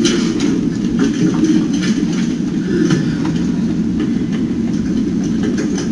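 Steady low rumble of classroom room noise with scattered light clicks and knocks.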